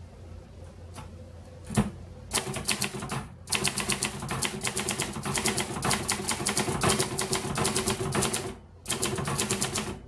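1964 Hermes 3000 manual typewriter being typed on: a single keystroke about two seconds in, then fast, continuous keystrokes with short breaks near three and a half and eight and a half seconds in.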